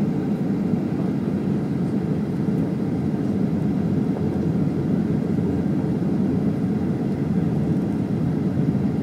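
Steady cabin noise inside a Boeing 737-800 in flight: a low, even rumble of engine and airflow noise, with no change in pitch or level.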